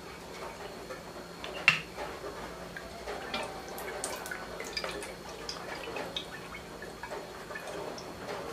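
Olive oil poured from a bottle into a hot, empty wok: a light trickle with scattered small ticks, and one sharp click about a second and a half in.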